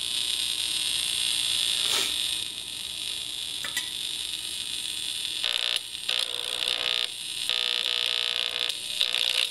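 Small 8-ohm speaker driven by a breadboarded LM741 and LM386 op-amp amplifier, buzzing loudly with stray noise picked up through its input lead clipped to a pair of tweezers, a sign of the unshielded circuit's long leads. In the second half the buzz changes and dips several times as the tweezers are pressed against a soldering iron, picking up mains hum.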